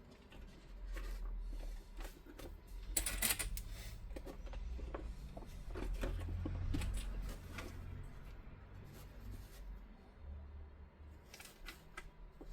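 Stiff X-Pac laminated fabric rustling and crinkling as it is handled during hand-stitching with an awl, with scattered small clicks and a brief rasping swish about three seconds in.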